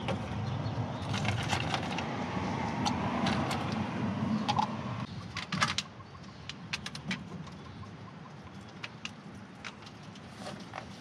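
Water running into a plastic bottle for about five seconds, the pitch rising slightly as it fills, then stopping. After that come light clicks and knocks of plastic bottles and caps being handled.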